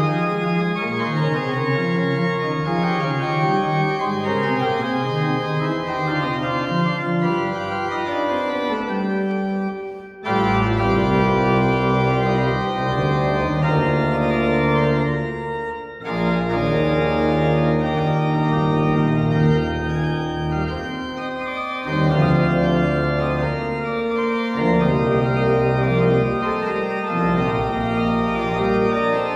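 Church pipe organ playing sustained full chords; deep pedal bass comes in about ten seconds in, and the music breaks off briefly twice, about ten and sixteen seconds in.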